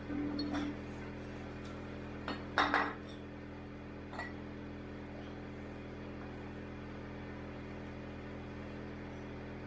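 A few light metallic clinks and one louder clank of metal parts or tools being handled, with a steady electrical hum underneath.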